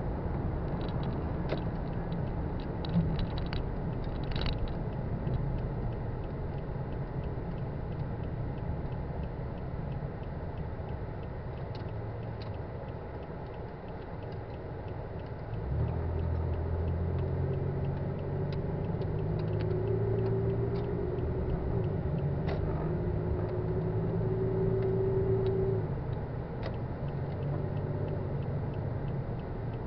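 Car interior noise on the move: a steady low engine and road rumble. About halfway through, the engine note comes up louder and holds for about ten seconds before dropping back. A faint regular ticking runs underneath.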